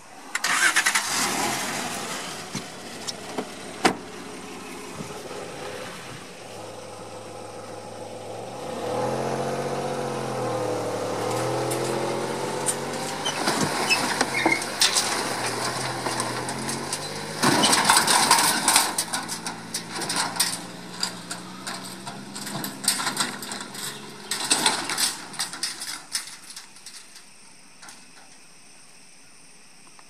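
Toyota 4Runner's V6 engine started about a second in after a door slam, then revving up and down as the four-wheel drive and its box trailer splash through a shallow creek, the splashing loudest a little past the middle. The engine fades out near the end as the vehicle drives away.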